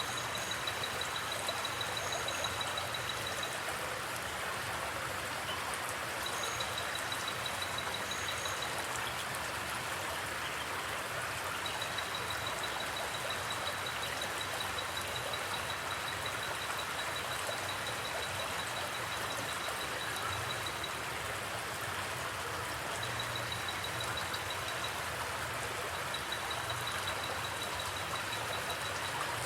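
A forest creek of flowing water running steadily. A high, fast-pulsing trill starts and stops several times over it.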